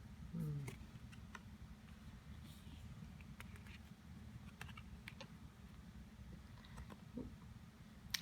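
Faint, scattered light clicks and taps of paper oracle cards being handled and turned over.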